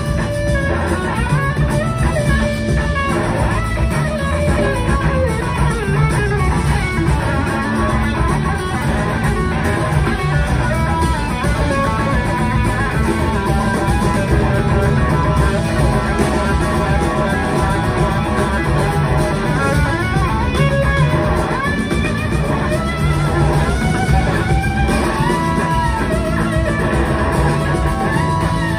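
Live rock band playing an instrumental passage: an electric guitar lead with gliding, bending notes over drums and bass.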